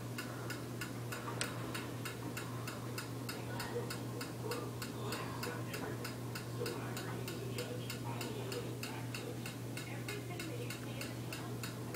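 Rapid, even mechanical ticking, about four ticks a second, over a steady low hum, with one sharper click about a second and a half in.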